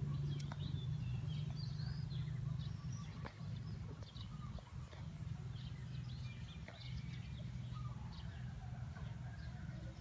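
A chorus of many frogs calling after rain, blending into a steady low-pitched droning hum with scattered short high-pitched chirps over it.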